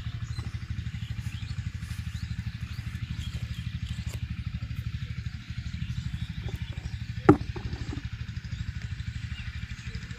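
A small engine running steadily off-screen with a fast, even low thudding beat. A single sharp knock about seven seconds in stands out above it.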